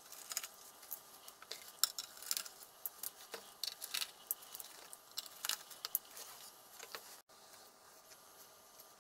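Small metallic clicks, taps and clinks of hands handling the metal case of a Collins HSI-70 horizontal situation indicator. The clicks come irregularly, several a second, and thin out after about seven seconds.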